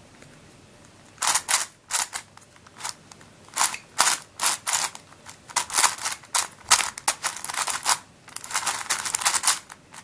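Plastic layers of a Witeden Mixup 3x3x3 puzzle cube clicking and clacking as the faces are turned in quick, irregular bursts, starting about a second in. The new cube is dry and a little catchy as it turns.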